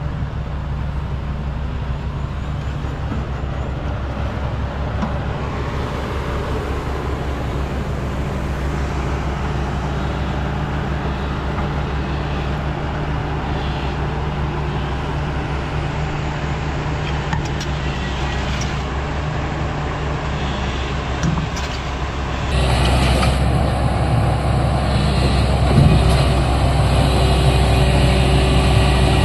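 XCMG XE210i crawler excavator's diesel engine running steadily, with a few light knocks. It gets suddenly louder and brighter about three quarters of the way in.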